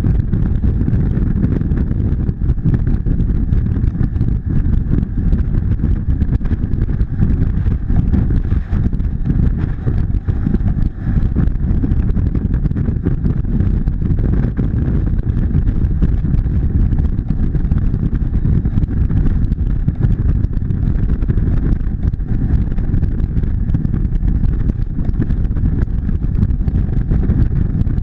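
Motorcycle cruising at highway speed: a steady rush of wind on the microphone, with the engine's even drone underneath.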